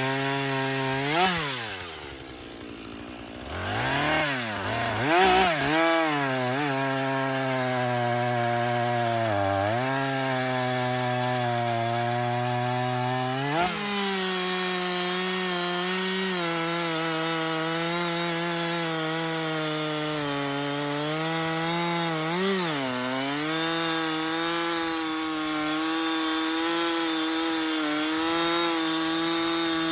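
Husqvarna two-stroke chainsaw bucking a downed sycamore trunk. The engine rises and falls in pitch several times and eases off briefly about two seconds in, then holds a steady pitch through a long cut in the second half.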